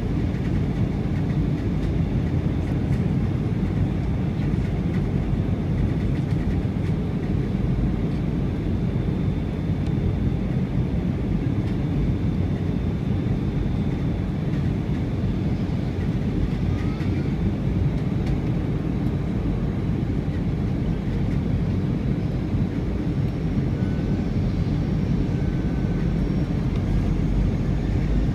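Steady low rumble of an airliner cabin during final approach, the jet engines and rushing air heard from inside, with a faint steady high whine over it.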